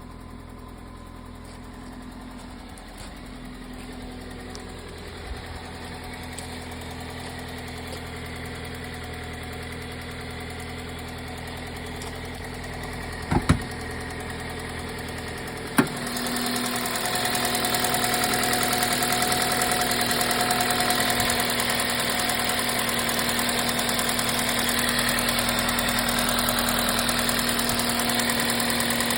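A 2005 Toyota Matrix's 1.8-litre 1ZZ four-cylinder engine idling steadily with a ticking noise. The owner has already replaced the timing chain tensioner and suspects something under the valve cover. A few sharp knocks come about halfway through, and then the engine sound becomes clearly louder and brighter.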